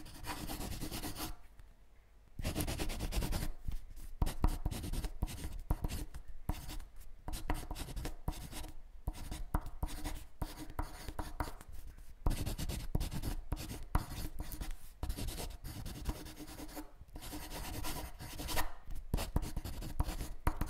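Scratchy, irregular strokes of writing on paper, with a short pause about two seconds in.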